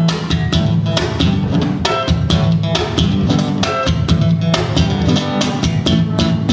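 Live band playing a song's instrumental opening: guitar over bass and a drum kit keeping a steady beat.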